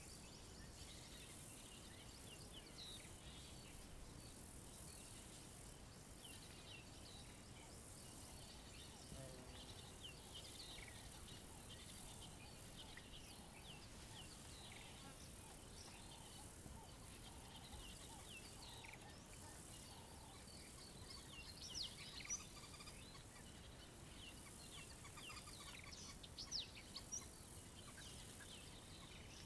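Faint savanna ambience: many short, high bird chirps and calls over a steady high insect hiss. A few louder calls come about two-thirds of the way in and again near the end.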